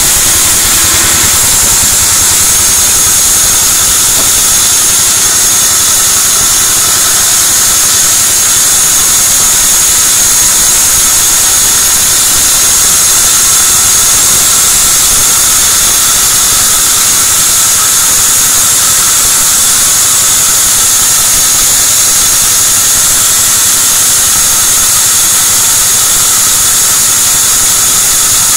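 Sawmill band saw ripping lengthwise through a log of white teak (gmelina): a loud, steady high-pitched whine over a hiss of blade and sawdust.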